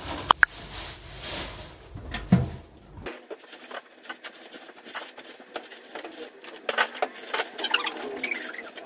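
Plastic shopping bags rustling as groceries are pulled out and set down on a table, with many light knocks and clicks.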